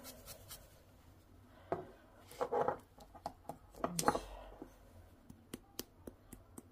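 A hand pepper mill grinding black pepper over a bowl of yoghurt, a rapid run of short dry clicks starting near the end. Before that, a few brief knocks and handling noises.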